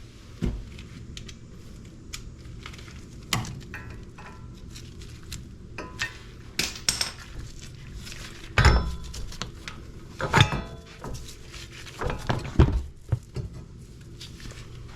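Metal hand tools clinking and knocking: sockets and wrenches handled and set against the hub bolts, about a dozen separate clanks spread out, a few with a short metallic ring.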